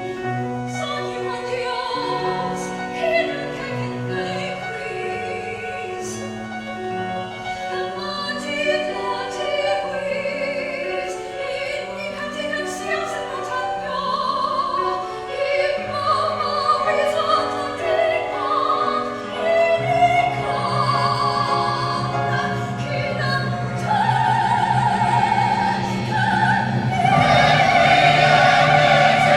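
Combined choirs singing a slow choral passage in sustained notes, several voice parts moving in steps, swelling louder in the last few seconds.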